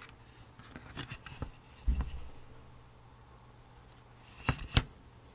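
Handling noises from needle felting a wool cat face: small clicks and rubbing as fingers and a felting needle work wool fibres in, a dull thump about two seconds in, and two sharp clicks close together near the end, over a low steady hum.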